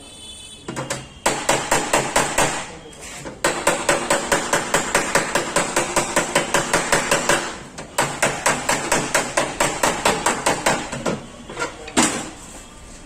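Hammer beating dents out of a Maruti 800's sheet-metal body panel by hand: rapid strikes, about five a second, in three long runs with short pauses, and one last harder blow near the end.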